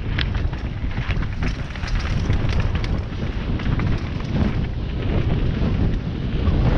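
Wind buffeting an action camera's microphone on a mountain bike descending a dirt trail, with the rumble of the tyres on the ground and frequent sharp clicks and rattles from the bike as it runs over stones and roots.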